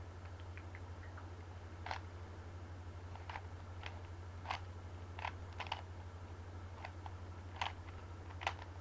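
Layers of a plastic Rubik's cube being twisted by hand: scattered short clicks, about ten over several seconds, at an uneven pace. A steady low hum runs underneath.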